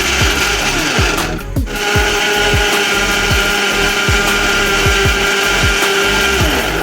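Electric mixer grinder blending mango pulp with sugar and milk, a steady whirring motor that stops briefly about a second and a half in, then runs again and winds down near the end.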